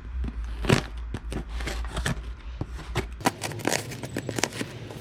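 A large knife cutting open a cardboard parcel: an irregular run of scrapes, slices and sharp clicks as the blade goes through the packing tape and cardboard.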